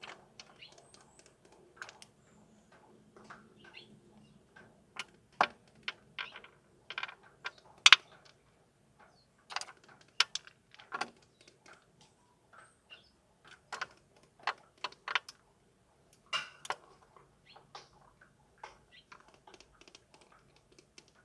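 Oriental turtle dove pecking at peanuts and almonds in a window-frame track: irregular sharp taps and clicks of its bill and the nuts against the frame, at times several a second, the loudest about eight seconds in.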